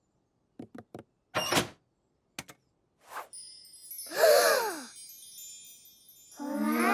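Cartoon sound effects: a few soft clicks and a short whoosh, then a tinkling chime with a pitched rising-and-falling sound, like a voice going 'ooh', about four seconds in. A held pitched sound starts near the end.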